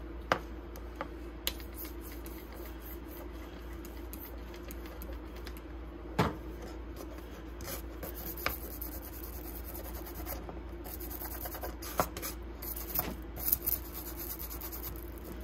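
Small stiff-bristled brush scrubbing a screwdriver handle wet with Simple Green cleaner: a raspy scratching in quick strokes, heaviest in the second half, with a few sharp knocks scattered through. A steady low hum sits underneath.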